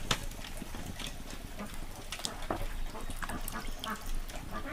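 Wet hands working a split fish over a plastic basin of water: scattered small clicks, taps and squelches as the flesh and bones are handled. A few faint animal calls sound in the background.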